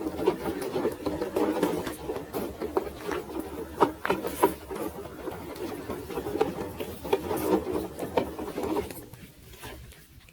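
Electric motor and gearbox of a small HB ZP1008 4x4 RC car whirring as it crawls over rocks, with scattered clicks and knocks of the tyres and chassis on stone. The sound drops away about nine seconds in.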